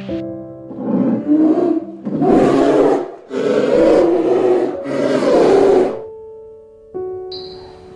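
Polar bear growling in four long, rough, breathy rasps, each about a second long, over soft piano music.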